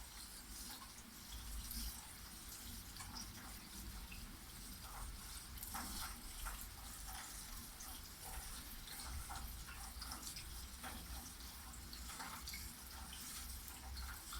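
Rain falling steadily, with many separate drops ticking and dripping close by over a soft even hiss.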